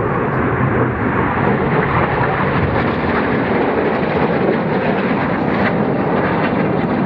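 Loud, steady rushing jet noise of a BAe Hawk's Adour turbofan engine as the jet flies a display pass.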